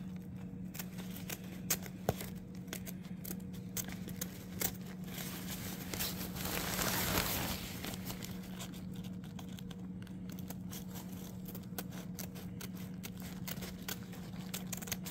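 Scissors snipping through tent fabric, the fabric crinkling and rustling as it is handled, with a louder rustle about six to seven seconds in. A steady low hum runs underneath.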